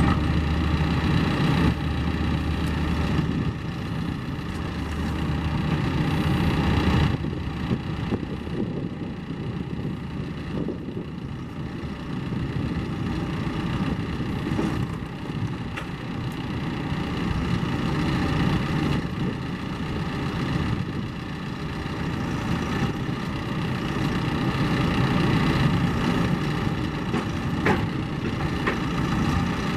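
Four-cylinder diesel engine of a John Deere 310SL backhoe loader running. Its low, heavy note is strong for the first seven seconds or so, then eases off, and the level rises and falls gently after that.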